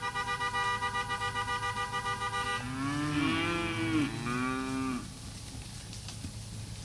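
A steady horn tone sounds for about two and a half seconds to call the cattle, then Angus steers moo several times, their calls rising and falling until about five seconds in.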